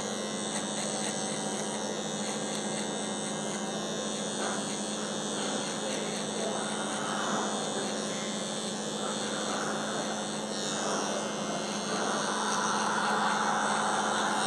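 Cordless hair trimmer running with a steady hum as its blade cuts short hair close to the skin behind the ear, a little louder for the last couple of seconds.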